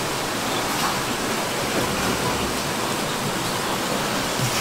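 Fast mountain stream rushing over rocks: a steady hiss of flowing water.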